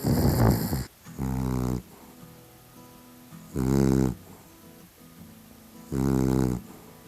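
A sleeping dog snoring: a rough snort, then loud buzzing snores that repeat about every two and a half seconds.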